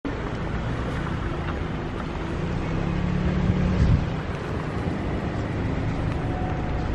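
Steady low rumble of road traffic, swelling as a vehicle passes about three to four seconds in.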